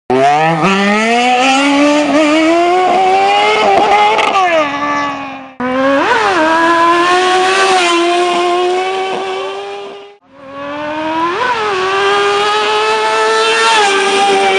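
Kawasaki ZX-6R inline-four sport bike engine accelerating hard, its pitch climbing over the first few seconds and then held at high revs with brief blips of the throttle. The sound breaks off twice, about halfway through and again about ten seconds in, and picks up each time at high revs.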